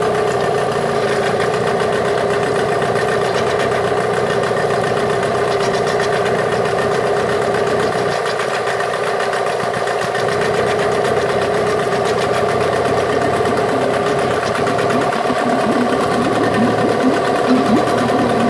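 Yamaha 8 HP two-stroke outboard motor running at idle. The running dips slightly around the middle and turns a little uneven near the end.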